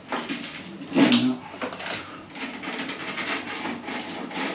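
A flexible cable rod scraping and rubbing against plasterboard and timber as it is pushed through a downlight hole into the ceiling void, with a louder scrape about a second in.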